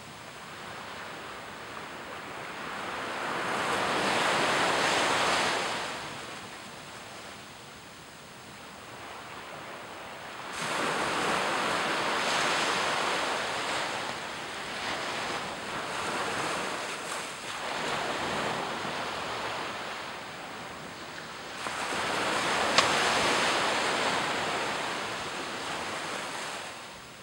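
Small waves breaking and washing up a sandy beach, swelling and fading: one wash about four seconds in, a longer run of surf from about ten to twenty seconds, and another near the end. There is a single sharp click during the last wash.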